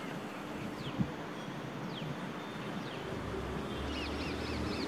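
Birds chirping over a steady outdoor hiss. About three seconds in, a low rumble and hum come in and slowly grow louder: a WAP-7 electric locomotive and its express train drawing nearer. Near the end, a bird calls in quick repeated notes.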